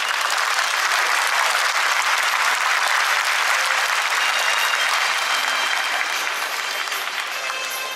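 Spectators in the stands applauding, a dense steady clapping that eases off slightly near the end.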